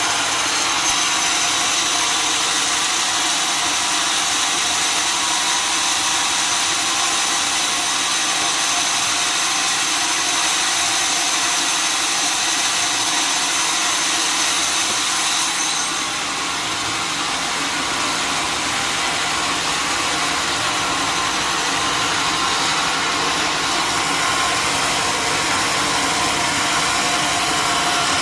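Sawmill machinery running steadily, a continuous engine-like hum with several steady tones over a noisy hiss. The sound dips a little and changes about halfway through.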